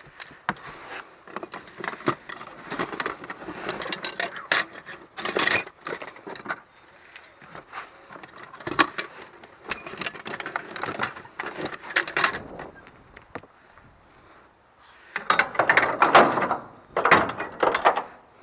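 Scrap metal parts clanking and clattering as they are handled and tossed, with many sharp knocks and a louder stretch of clatter near the end.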